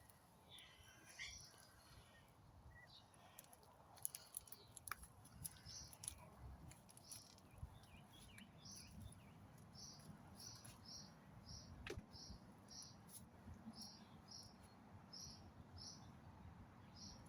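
Faint birdsong: a small bird repeating a short, high chirp over and over, with other brief chirps earlier on.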